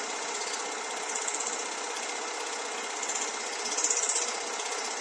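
Film projector running: a steady mechanical whir with a fast, even clatter, with the high hiss swelling briefly about four seconds in.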